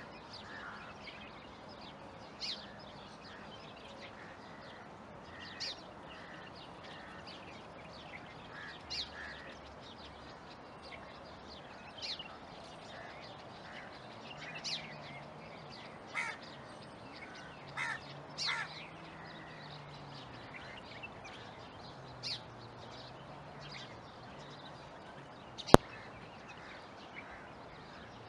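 Small birds calling: short, sharp, high notes that fall in pitch, one every one to three seconds, a few of them doubled. Near the end there is a single loud, sharp click.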